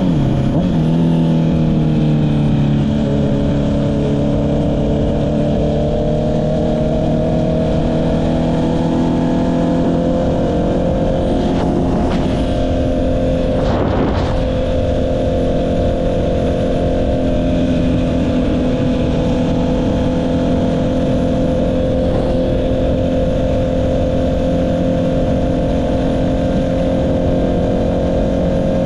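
Honda CB650R's inline-four engine running through an Akrapovic exhaust while riding. The pitch drops sharply at the start with a gear change, climbs slowly, then holds steady at cruise over constant wind rumble. Two brief whooshes come about twelve and fourteen seconds in.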